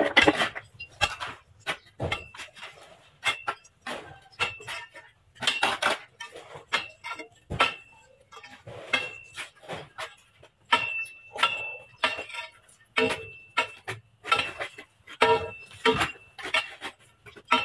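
A long steel bar being driven down again and again into gravelly soil and rubble to break up the ground. The strikes come at about two a second, each a sharp metallic clink, and several ring briefly after the hit.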